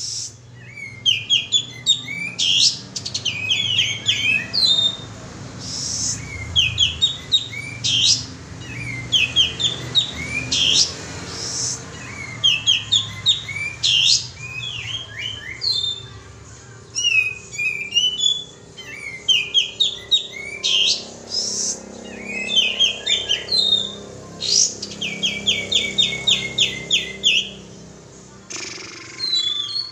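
Kapas tembak bird singing: phrases of quick, sharp chirping notes, a second or two each, repeated with short pauses between them, as used for a lure song.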